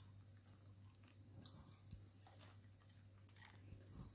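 Near silence: room tone with a faint low hum and a few scattered faint clicks.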